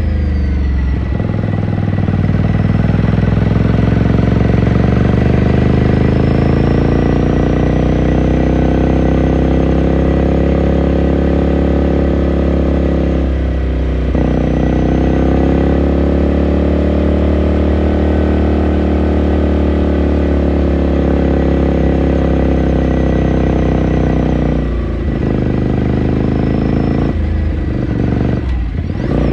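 Ducati Scrambler Sixty2's air-cooled L-twin engine pulling the bike along, its note climbing, holding and sagging with the throttle. The note breaks off briefly about 13 seconds in and twice near the end, then picks up again.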